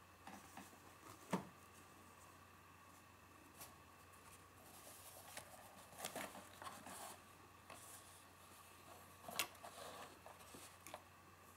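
Quiet handling noises: a cardboard box of freezer bags is brought in, rustling and clicking, and set down on a board, with a few light knocks, the sharpest about a second in and near the end.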